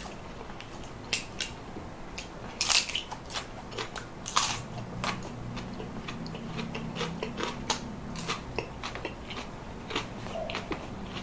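Close-miked eating: biting and chewing with irregular sharp crunches, the two loudest a little under three seconds and about four and a half seconds in. A low steady hum runs through the middle for about four seconds.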